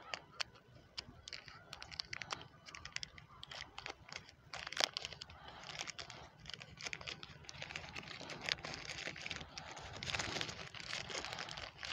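Small plastic packaging bag crinkling and rustling as it is handled and pulled open by hand, with irregular small clicks and one sharper click a little before the middle.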